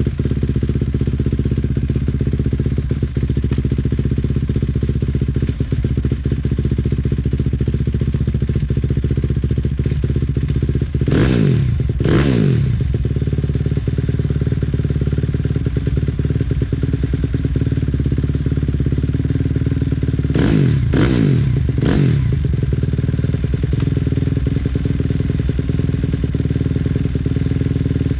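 Suzuki RM-Z250's single-cylinder four-stroke engine idling steadily, with the throttle blipped twice about eleven seconds in and three more times about twenty seconds in, each rev rising and quickly falling back to idle.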